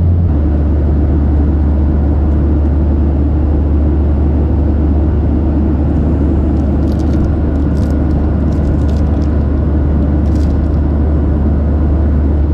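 Steady cabin drone of a Boeing 737-800 in flight, the engines and rushing air heard from a passenger seat as a loud, even low hum with a hiss over it.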